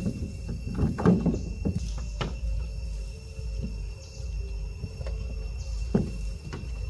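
Scattered knocks and thumps of long-tailed macaques scrambling and wrestling on a car's metal roof, several close together about a second in, another just after two seconds and one more at about six seconds, over a low steady rumble.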